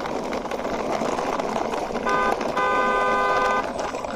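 Toy car's electronic horn tooting: a short toot and then a longer one about a second long, starting about two seconds in, over the scraping rattle of small plastic wheels being pushed along.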